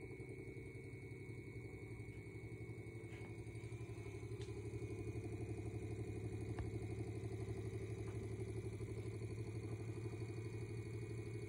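Edison 1893 iron-clad DC battery fan running with its brass blades spinning: a steady motor hum with a rapid flutter and a thin high whine, plus a few faint ticks. It grows somewhat louder about five seconds in.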